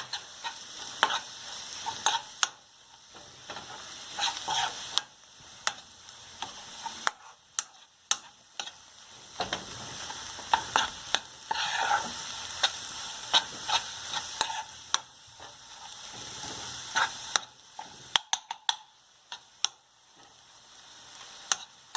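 Masala of ground spices and paste frying in oil in a pan, a steady sizzle, while a utensil stirs and scrapes it, giving many sharp clicks and taps against the pan.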